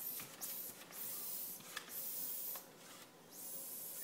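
A hand-held basketball air pump puffing air out of its hose and needle in a series of short hissing bursts, about five in all.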